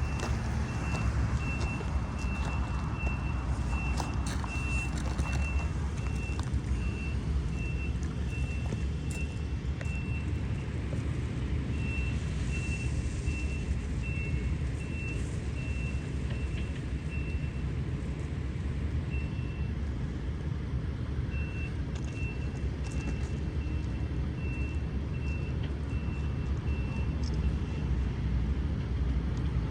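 A vehicle's backup alarm beeping about twice a second, stopping and restarting a few times, over the steady low rumble of an engine running.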